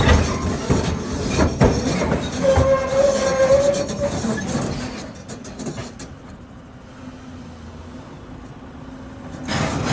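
Heavy steel machinery clanking and rattling, with a high metallic squeal held for a second or two. It then drops to a quieter steady hum, and a short loud burst comes near the end.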